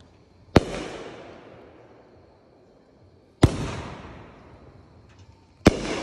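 Aerial firework shells with gold nishiki (brocade) stars bursting three times, about two and a half seconds apart; each sharp bang trails off over a second or two.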